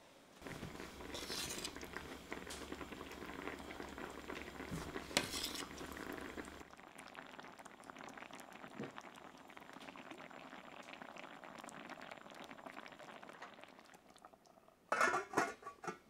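Rice, shiitake mushrooms and saffron broth bubbling in a cast-iron skillet, louder for the first six seconds or so while a spatula stirs through it. Near the end a metal lid clanks onto the pan a few times.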